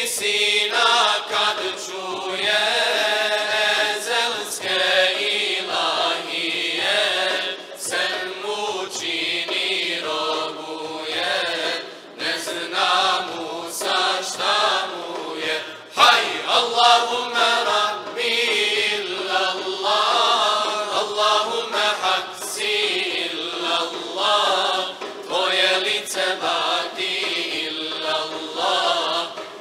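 Choir of men's and women's voices singing an ilahija, a Bosnian Islamic devotional hymn, without pause. There is one sharp knock about halfway through.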